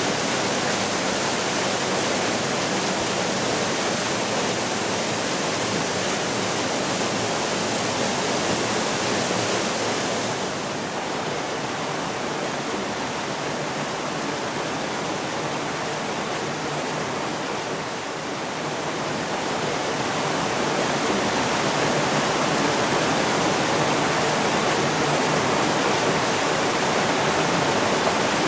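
Upland river rushing over rocks and small falls: a steady rush of water. It turns a little duller and quieter about ten seconds in, then grows louder again about twenty seconds in.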